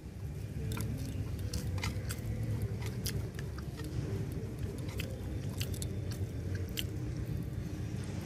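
Close-up mouth sounds of someone chewing rice and steamed fish: irregular small wet clicks and smacks, over a low steady rumble.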